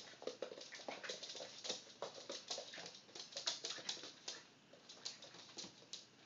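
Small dog spinning after her own tail on a wooden floor: a rapid, irregular clicking and scrabbling of claws on the boards, thinning out near the end.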